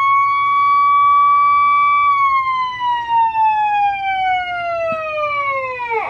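Federal Signal Select Tone 300GC electronic siren sounding its wail tone through its horn speaker, on the low power setting. A steady high tone holds for about two seconds, then glides slowly down over about four seconds, and starts a new rise at the very end.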